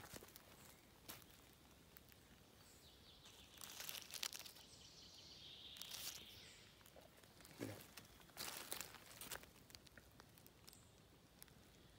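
Dry leaf litter and twigs rustling and crackling in a few short bursts, faint overall, as feet and a hand move through the forest floor.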